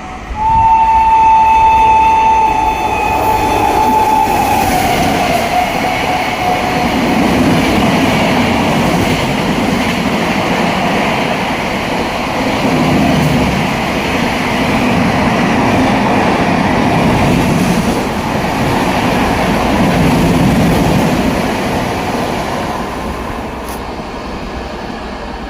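Locomotive horn held for about four seconds, its pitch sliding down as the train approaches and passes. Then a high-speed express train runs past with a loud steady rumble of wheels on the rails, which swells and ebbs and eases off near the end.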